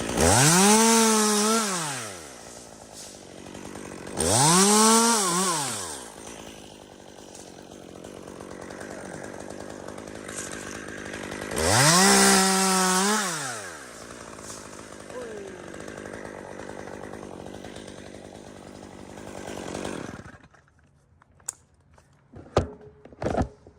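Chainsaw revved up and let back down three times, with steady idling in between, then shut off about 20 seconds in. A few sharp knocks follow near the end.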